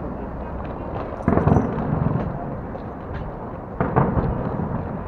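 Two sudden heavy booms about two and a half seconds apart, each trailing off in a low rumble over steady street noise. The man filming takes them for cannon being fired to celebrate.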